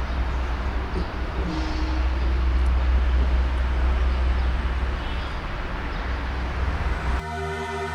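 Steady low rumble and road noise of a vehicle on the move. Electronic music begins near the end.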